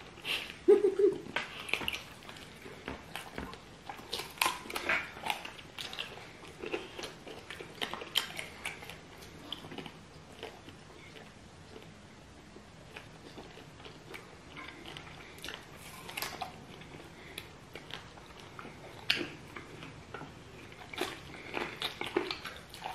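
Two people biting and chewing stewed chicken feet in egusi stew, close to the microphone: irregular sharp, wet mouth clicks and smacks. The sounds come thickest near the start and the end, with a quieter stretch in the middle.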